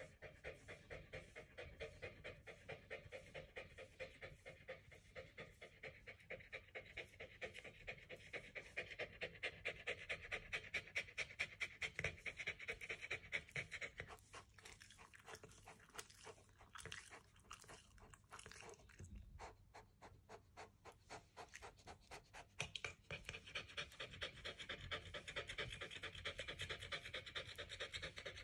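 Dog panting close up, fast and even at about three breaths a second, thinning out and turning uneven about halfway through, then picking up again near the end.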